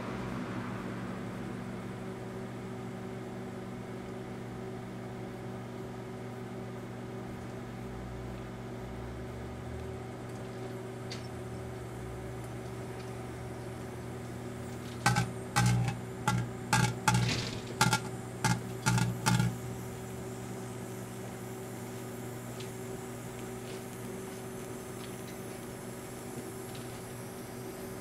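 Daewoo microwave oven running with a steady electrical hum while a Dermoplast aerosol can burns inside it. About halfway through comes a run of about nine short, loud buzzing bursts over some four seconds, then the steady hum goes on.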